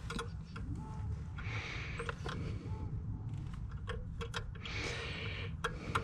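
Hand-tool handling sounds: scattered light metallic clicks and rustling as a wrench is worked onto a nut deep in an excavator's engine compartment, over a low steady rumble.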